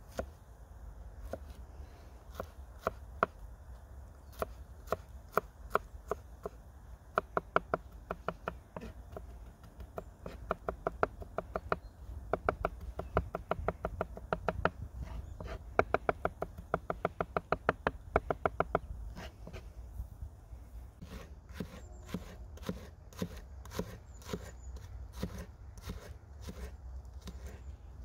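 Knife chopping food on a cutting board. A few separate chops at first, then a fast, even run of several chops a second, then slower, irregular knocks for the last several seconds, over a low steady rumble.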